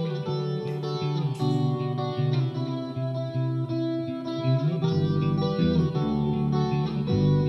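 Electric guitar played through effects, with looped guitar phrases layered over one another. About five seconds in, a deep bass part joins.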